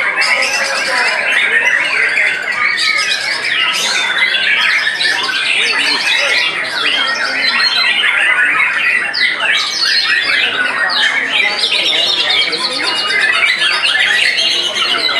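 Many caged white-rumped shamas (murai batu) singing at once in a songbird contest: a loud, unbroken chorus of overlapping whistles and fast trills, no single bird standing out.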